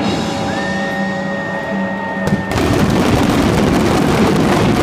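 Fireworks bursting and crackling in quick succession, with music holding a chord over them for the first two and a half seconds. After that the barrage thickens into a dense, continuous mass of bursts and crackle.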